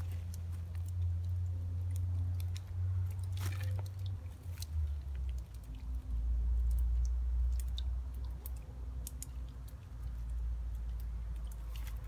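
Dry brambles and twigs crackling and crunching as someone pushes through undergrowth on foot, with scattered sharp snaps, over a steady low rumble on the microphone.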